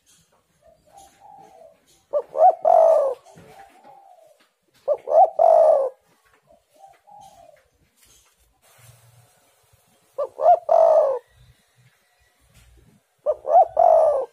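Spotted dove (tekukur) cooing: four loud phrases, each two quick notes and then a longer coo, about three seconds apart, with softer falling coos between them.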